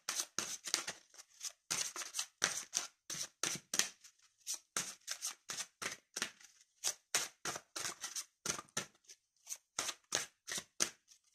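A deck of oracle cards being shuffled by hand: a steady run of short papery slaps and flicks, about three or four a second.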